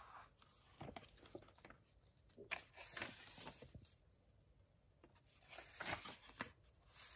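Faint rustling of paper as the pages of a thick hardback book are turned and smoothed down by hand, several soft rustles a second or two apart.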